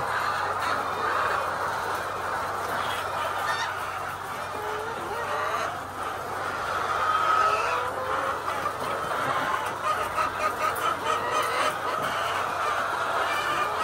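A large flock of layer chickens calling continuously, many overlapping short calls, with a run of light clicks near the end.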